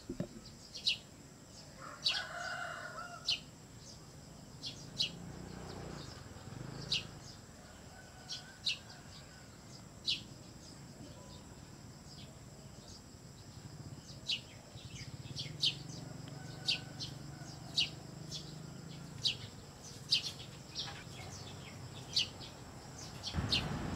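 Small birds chirping outdoors: short, sharp high notes scattered irregularly throughout, with a brief lower call about two seconds in.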